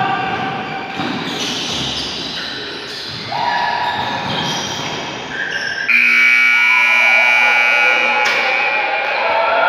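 Crowd noise in a basketball gym with held tones at changing pitches. About six seconds in a loud buzz starts suddenly and lasts about two seconds.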